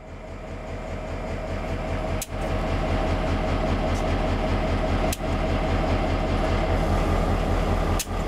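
Canadian Pacific diesel-electric freight locomotive running close by: a deep, pulsing rumble with a steady mid-pitched hum above it, fading in at the start. The sound is broken by a brief drop-out three times.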